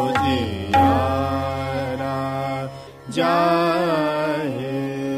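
A Hindustani classical vocalist sings the bandish of raga Hamsadhwani, holding two long notes with ornamental slides over a steady drone. The second note begins about three seconds in, after a brief break.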